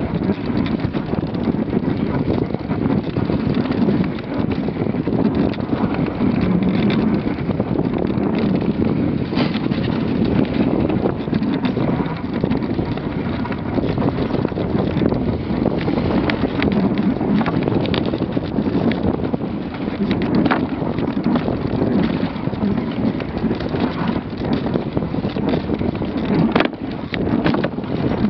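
A dogsled running over snow behind a husky team: a steady hiss and rumble from the runners, with wind on the microphone, broken by a handful of sharp clicks and knocks.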